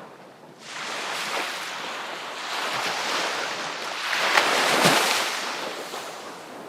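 Sea waves breaking on the shore: one wave surges in about half a second in, swells to its loudest a little past the middle, then washes out and fades toward the end.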